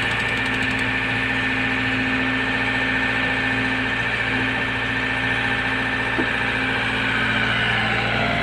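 Diesel engine of a LOVOL excavator running steadily as it digs and lifts a bucket of wet clay mud, with a steady high whine over the engine note.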